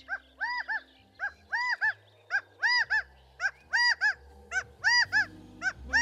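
Gambel's quail calling: a run of short, repeated calls, each a rising-then-falling note often followed by a shorter one, about one to two a second and growing louder, over soft background music.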